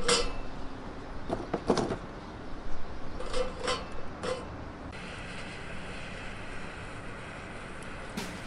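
Lumps of lump charcoal knock against each other and against the steel grate of a small round barbecue as they are set in place with metal tongs, a handful of clunks over the first four seconds. About five seconds in, a handheld gas blowtorch starts hissing steadily as it lights the charcoal.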